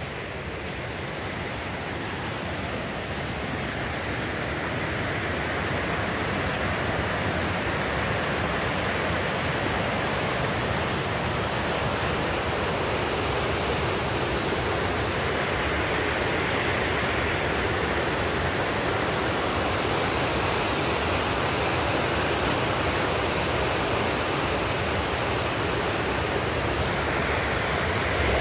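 Waterfall's rushing water, a steady roar that grows louder over the first few seconds and then holds even.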